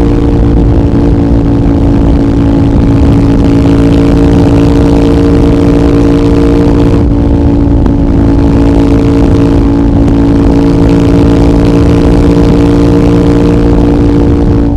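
CFMOTO 800NK parallel-twin engine, decat with the stock muffler, running loud at a steady, nearly constant engine speed.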